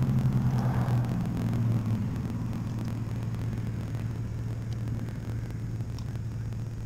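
A steady low motor hum, a little louder in the first two seconds and then even.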